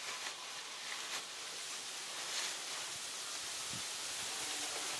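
Outdoor ambience: a steady hiss of leaves stirring in the breeze, with a few light rustles and soft taps.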